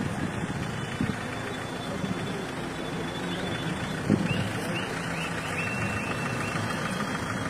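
Road traffic in a jam: vehicle engines running with a steady rumble of noise. About halfway through, a short run of five or six quick, high beeps.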